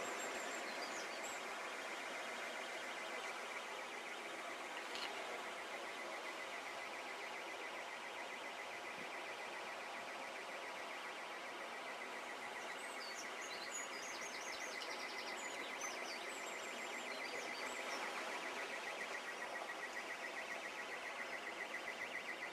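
Steady rushing hiss of swollen floodwater flowing past, with birds chirping briefly near the start and again about two-thirds of the way in. A high, rapidly pulsing buzz grows louder near the end.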